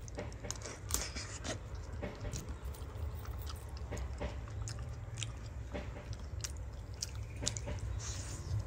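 Someone eating grilled cassava: irregular crisp bites and chewing clicks, over a steady low rumble.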